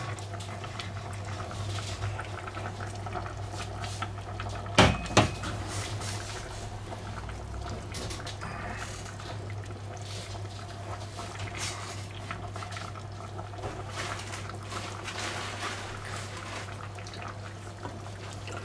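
Cabbage rolls being pressed into a pot of sauce by hand: wet squelching and sloshing of the sauce, with two sharp knocks about five seconds in, over a steady low hum.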